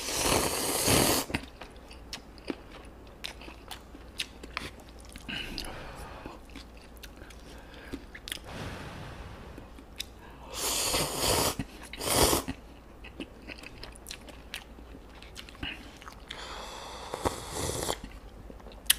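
A person eating instant ramyun noodles close to the microphone. The noodles are slurped loudly at the start and twice more about halfway through, with wet chewing and small smacks in between. Near the end there is a longer slurp of broth drunk from the bowl.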